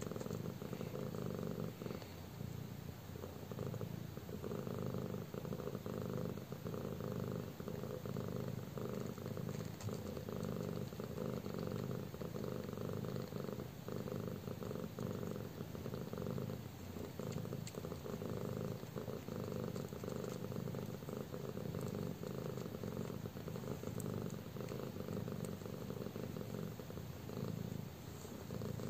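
Nursing mother cat purring steadily and continuously as her newborn kittens suckle.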